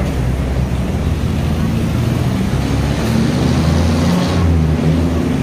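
Steady low rumble of road traffic, with a vehicle engine running close by, over faint indistinct chatter.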